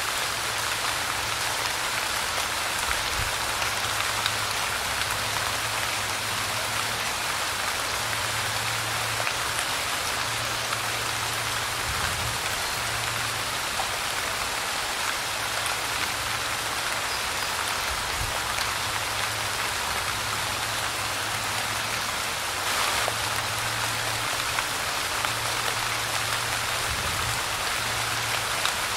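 Steady light rainfall, an even, unbroken patter of drops on a surface.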